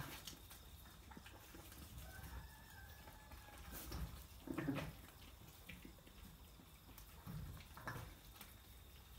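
Faint farm animal sounds: one drawn-out call about two seconds in, then two short, louder animal noises around the middle and near the end.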